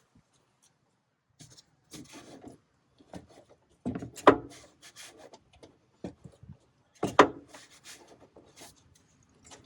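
A long torque wrench being heaved on to tighten the harmonic balancer's crankshaft bolt toward 240 ft-lb: irregular scraping and rubbing noises, with two sharp knocks about four and seven seconds in.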